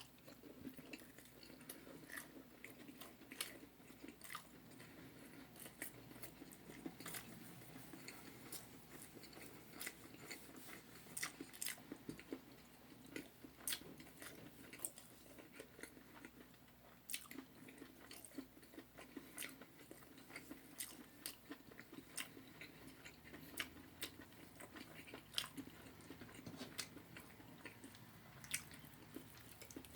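A person chewing and biting into spicy Korean fried chicken close to the microphone, with irregular sharp crunches and mouth clicks throughout.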